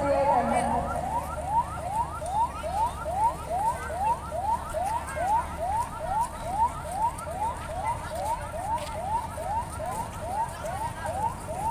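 Electronic siren sounding in quick rising sweeps, about three a second, each sweep climbing and then dropping back.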